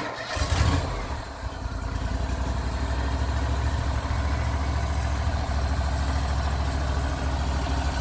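Wood-Mizer portable bandsaw sawmill's engine running steadily, a low, even pulsing drone, a little louder in the first second.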